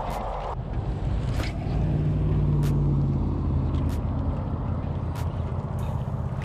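Spinning reel being cranked to retrieve a lure, a steady low drone with a faint click about every second and a quarter.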